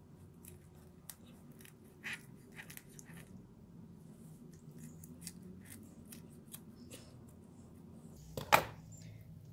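Kitchen scissors snipping through a raw chicken's backbone: a string of short, sharp snips and clicks, with one much louder snap near the end.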